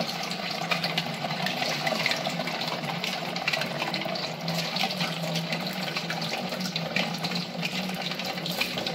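Otak-otak, a tapioca-flour batter cake with dried shrimp and vegetables, deep-frying in hot oil in a wok: steady sizzling and bubbling, full of small crackles, over a low steady hum.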